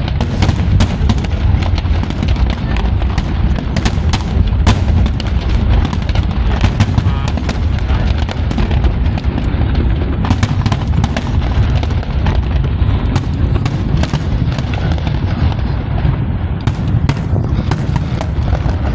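Fireworks display in full barrage: deep booming bursts overlapping one another with many sharp crackling reports, several a second, without a break.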